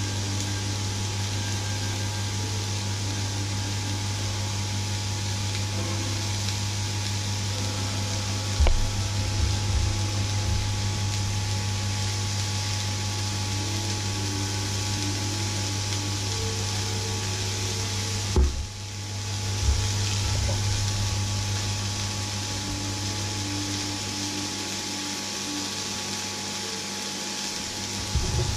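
Steady hum with an even hiss over it, as meat fries in a cast-iron grill pan on the hob. A few sharp knocks come about a third of the way in, twice around two thirds of the way, and again at the very end.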